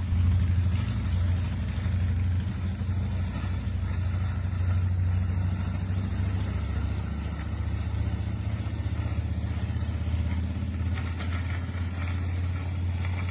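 Mammotion Yuka Mini robotic lawn mower running as it mows, a steady low motor hum.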